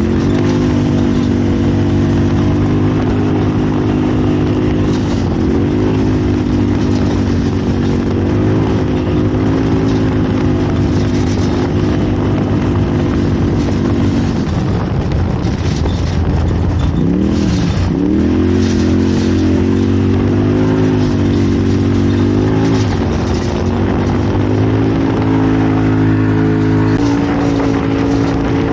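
Off-road race vehicle's engine heard from on board, running hard at a fairly steady pitch. About halfway through the throttle lifts and the pitch dips, then it climbs back up and steps higher twice near the end, with occasional knocks over the rough ground.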